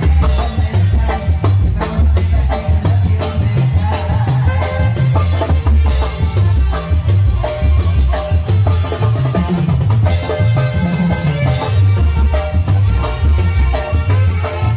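Tamborazo band playing live: a horn section with saxophone riffs short repeated figures over a walking bass line and steady drums, with no one singing.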